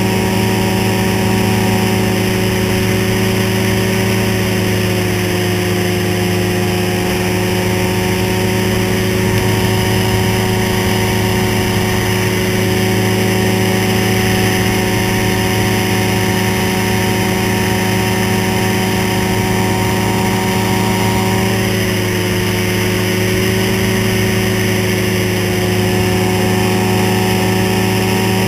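Ultralight trike's engine and propeller running steadily in flight, over a constant rushing hiss. The engine note eases down slightly about five seconds in and again about twenty-two seconds in.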